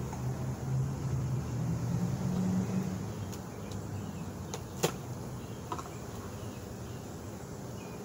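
Honeybees buzzing as a low, steady hum around a crowded, opened hive, strongest in the first three seconds. A few sharp clicks and knocks of a hive tool against the hive box follow, the loudest about five seconds in.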